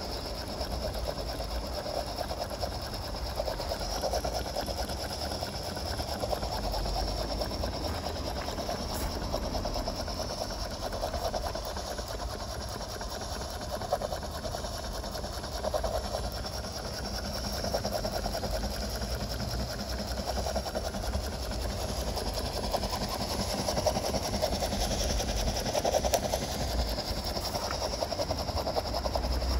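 Gauge 1 live-steam model locomotive running under steam during its second steaming: a fast, even chuffing from the cylinders with the clatter of its motion, over a steady hiss of steam.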